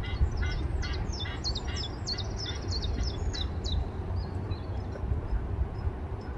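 A bird calling in a quick series of short, high notes, about three or four a second, that trail off about four seconds in. Under it runs a low, steady rumble of wind on the microphone.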